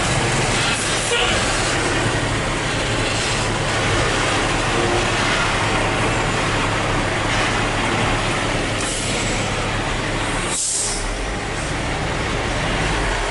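Heavy diesel truck's engine heard from inside its cab, running steadily at low speed. A short hiss comes about ten and a half seconds in.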